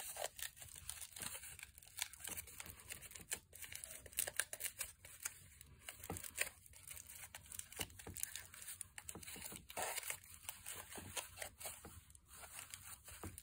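Aluminium foil crinkling under the fingers as it is pressed and folded around a small cement casting: an irregular run of sharp little crackles.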